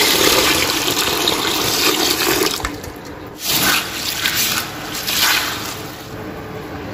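Water poured into a plastic bucket of wheat grains, a steady rush for about two and a half seconds. Then hands stir and wash the wheat in the water in a few short splashing swishes.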